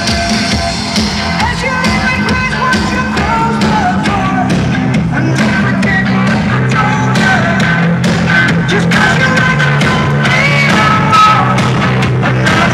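Loud music with a singing voice and strong bass, played over car sound systems.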